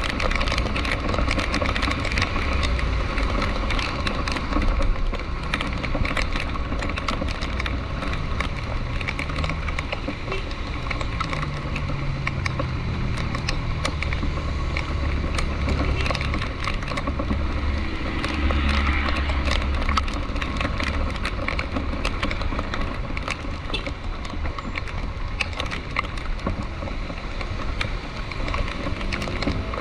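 Rain falling on a vehicle as dense ticking and crackling over a steady low rumble of engine and road noise. Near the middle an engine's pitch rises and falls a few times.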